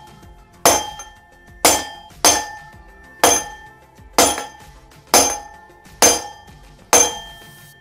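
Eight hammer blows on a steel bolt set through a motorcycle rear wheel hub, about one a second, each ringing out metallically: driving out a tight, worn rear wheel bearing.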